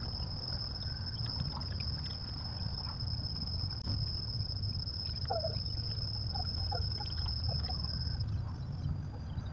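Crickets trilling in one steady high-pitched tone over a low steady rumble, the trill weakening near the end. A few faint short chirps come in the middle.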